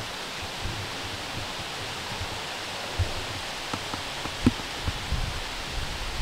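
Steady hiss of quiet outdoor air, with several soft low thumps and clicks from about halfway through.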